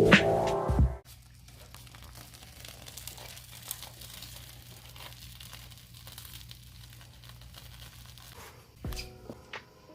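Music cuts off about a second in. Then faint rustling and crinkling of handling with a low steady hum, and music comes back in near the end.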